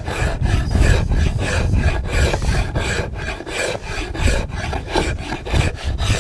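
A hand-forged draw knife pulled in repeated short strokes along a wooden stock, its blade scraping and shaving the wood.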